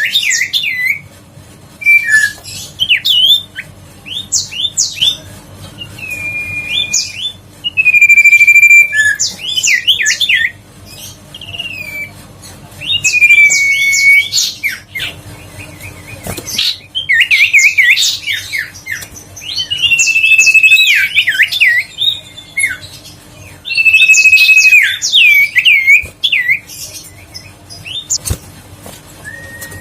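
Huýt cô (sirtu) songbird singing loudly in repeated phrases every two to three seconds, each a held, slightly falling whistle followed by a quick run of chirps and sweeps. It is a recording used to goad silent caged birds into singing.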